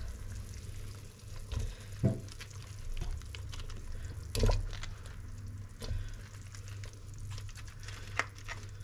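Chunks of raw potato dropped by hand one at a time into a pot of simmering chicken broth, each landing with a short splash or knock against the pot, the loudest about four and a half seconds in. A steady low hum runs underneath.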